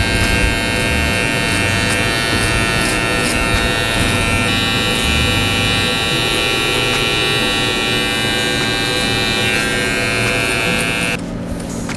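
Electric hair trimmer running steadily with a high buzz as it glides through a beard. It cuts off near the end.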